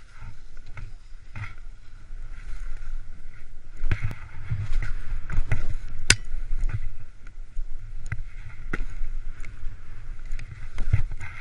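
Skis hissing and swishing through deep fresh powder snow, with wind rumbling on the microphone and scattered knocks and clicks. It gets louder from about four seconds in.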